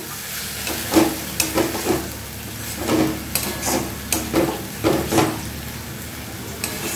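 Flat metal spatula scraping and stirring a thick spice paste around a metal kadai, in irregular strokes over a low, steady frying sizzle. The masala is being sautéed (kosha) on low flame.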